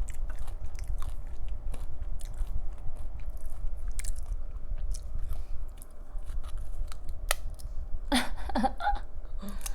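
Close-miked chewing of crunchy chips with salsa: a quick, irregular run of sharp crunches.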